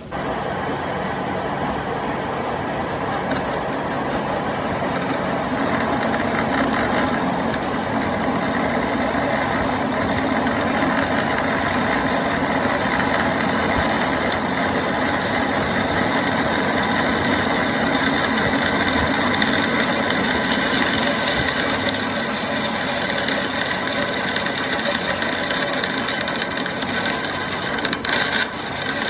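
A workshop machine running steadily, coming in suddenly and holding an even mechanical drone with a mix of steady tones throughout.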